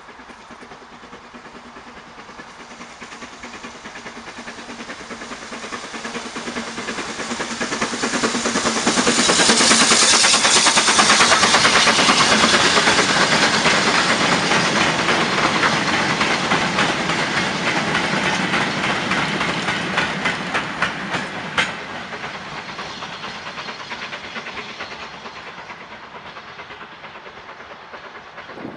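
Steam-hauled goods train passing: it builds up over several seconds, is loudest as the locomotive goes by, then the wagons' wheels click over the rail joints in a steady rhythm, with one sharper knock, fading away near the end.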